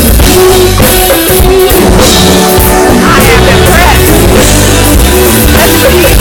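Live band playing loudly, with a drum kit driving the beat.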